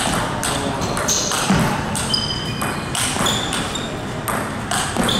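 Table tennis ball knocking off rubber-covered paddles and the table, about two to three hits a second, many with a short high ping.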